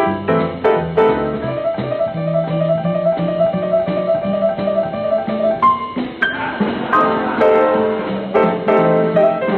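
Solo jazz piano: a quick repeated right-hand figure over a walking bass line, broken about six seconds in by a short flourish before the chords pick up again. The sound has the dull, thin top of an old kinescope film soundtrack.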